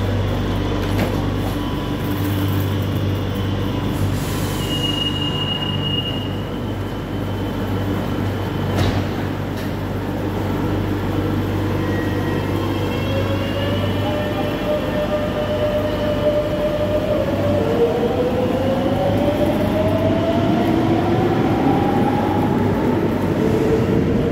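Madrid Metro series 7000 electric train standing at the platform with a steady low hum, and a short high tone about five seconds in. From about halfway through it pulls away: its traction motors whine, rising steadily in pitch as it accelerates.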